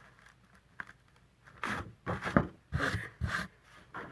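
Handling noise on a craft table: a few faint clicks, then a run of loud rubs and scrapes of hands, paper or cardstock on the work surface.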